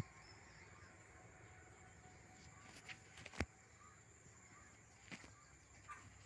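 Near silence with a faint steady high-pitched tone and a few scattered short clicks, the sharpest about three and a half seconds in.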